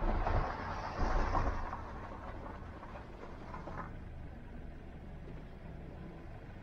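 Car driving along a road: a steady rush of road and tyre noise over a low engine rumble, louder for about the first two seconds and then easing to a quieter, duller hum.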